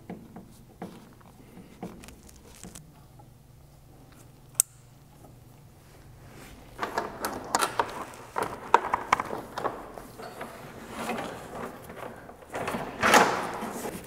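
A few small clicks and one sharp tick as a screw is driven in by hand with a screwdriver. From about seven seconds in, a stretch of irregular rustling and clattering as the wiring is handled and routed.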